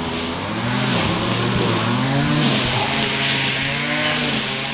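A motor vehicle accelerating past on the road, its engine note rising and dropping twice and then holding steadier, over tyre and road hiss; loudest in the middle.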